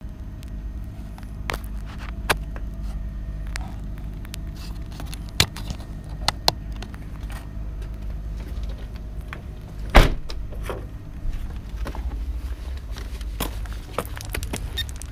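Close handling noise of an action camera being adjusted in its mount: scattered clicks, taps and rubbing over a steady low rumble, with one sharp knock about ten seconds in.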